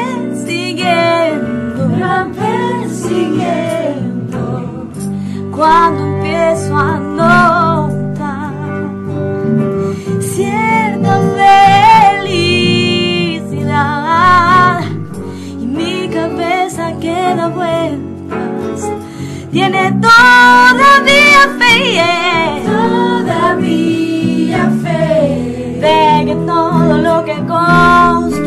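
Live blues song: a woman singing lead with a wavering, held melody over electric guitar accompaniment.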